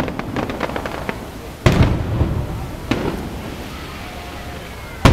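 Aerial fireworks shells bursting: a bang at the start, a run of quick crackling pops in the first second, then a heavy boom about a second and a half in with a long rumbling tail, and another bang near the three-second mark.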